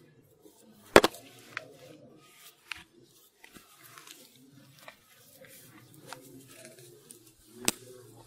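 Scattered sharp knocks and clicks, the loudest about a second in, over a faint low murmur of voices.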